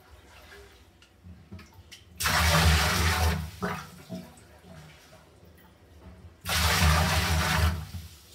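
Water splashing in two sudden loud bursts, each about a second long and about four seconds apart, with quieter water sounds between.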